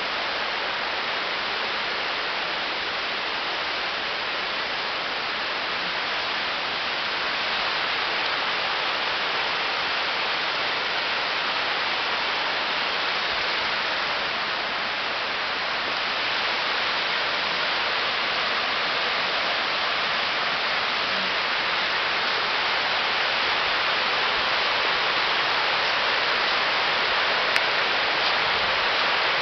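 Steady rush of running water, like a stream flowing over rocks, growing slightly louder over time.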